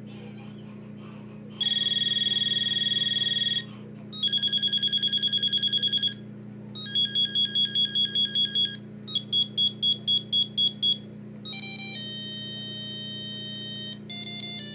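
Audiovox CDM-4500 mobile phone's built-in ringtones playing one after another: a steady electronic buzz, then a fast trilling ring, then two patterns of beeping at about five pulses a second, then a run of held electronic notes changing pitch. A low steady hum runs underneath.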